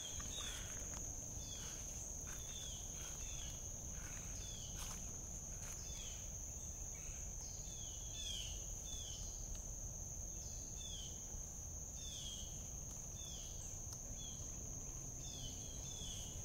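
Outdoor ambience: a steady high-pitched insect drone, with a bird repeating short down-slurred calls every second or so.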